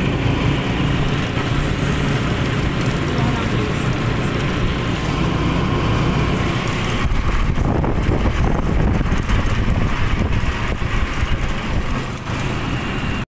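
Steady engine and road noise inside a moving vehicle, loud and heavy in the low end, cutting off abruptly near the end.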